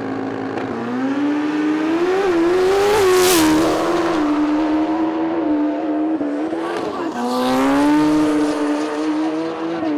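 Sport motorcycle launching in a drag race: its engine revs hard up through the gears in quick shifts, the pitch climbing and dropping at each change, then holds a high steady note as it runs down the strip.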